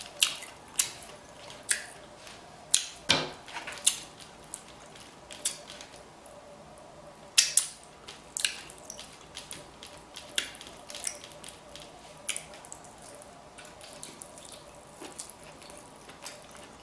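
Close-miked eating of a saucy seafood boil: irregular wet smacking and chewing clicks, a sharp one every second or so with a short lull near the middle.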